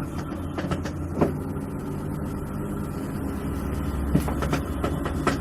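LG WF-T7519RS top-load washing machine running, with a steady low motor hum and scattered clicks and knocks, a rattle. The technician takes this for a failing wash/spin gearbox, about 90% sure.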